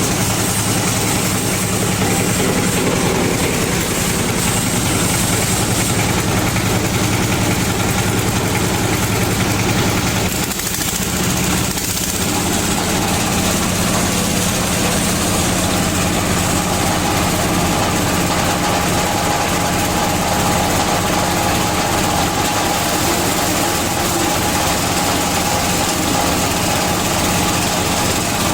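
A 16 HP diesel engine running steadily, driving a palm-frond chopper's 36-blade rotor. Its tone dips and shifts briefly about ten seconds in.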